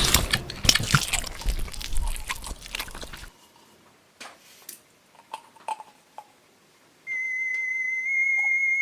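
Crackling and clicking of plastic being handled for about three seconds, then a few faint clicks. About seven seconds in, a steady high electronic tone starts, typical of a battery-powered toy.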